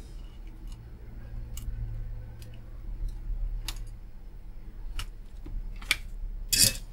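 Scattered light clicks and taps of hand tools on a circuit board and metal chassis during desoldering, with a louder clatter near the end, over a low steady hum.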